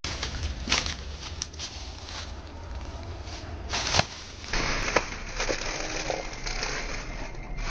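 Crackling, rustling handling noise on the microphone over a low rumble, with several sharp knocks, the loudest about four seconds in.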